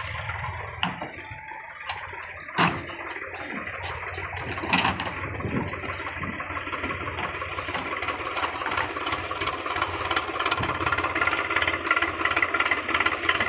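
JCB 3DX backhoe loader's four-cylinder diesel engine running under load as the backhoe digs, getting louder in the second half. A few sharp knocks stand out early on the steady engine sound.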